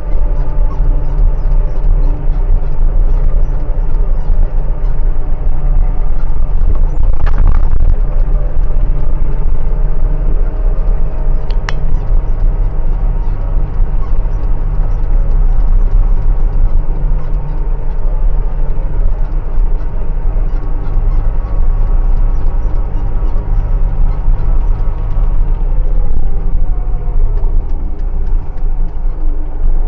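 A motor engine running steadily and loudly close by, holding an even pitch, with a brief clatter about seven seconds in.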